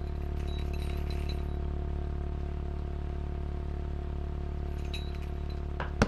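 Animated film soundtrack: a steady low drone of several held tones, with faint metallic clinks in two short clusters near the start and again about five seconds in, then a single sharp hit just before the end.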